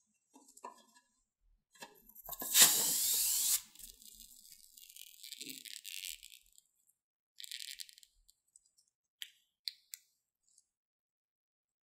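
A rubber balloon filled with glue and glitter being handled and squeezed out onto slime in a glass bowl. A loud rubbing noise comes about two and a half seconds in and lasts about a second, then softer squishing follows while the contents come out, with a few light clicks near the end.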